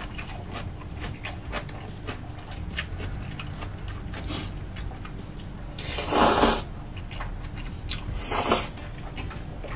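Close-miked eating sounds: wet chewing with many small mouth clicks, then two loud slurps of chewy jjolmyeon noodles, about six and about eight seconds in, the first the louder.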